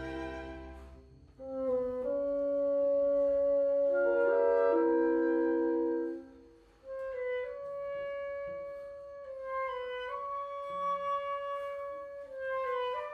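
Chamber orchestra playing a slow classical piece. A low chord fades out at the start, long held chords follow, and after a short break around the middle a slow melody moves in sustained notes.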